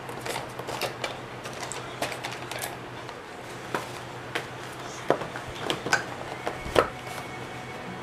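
Plastic yogurt cups and small cardboard boxes being handled and set into clear plastic storage trays on a wooden table: scattered light clicks and knocks, the sharpest one shortly before the end.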